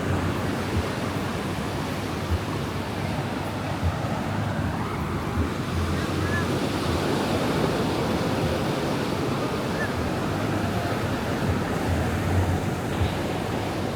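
Ocean waves breaking and washing up on a sandy beach in a steady rush, with gusts of wind buffeting the microphone.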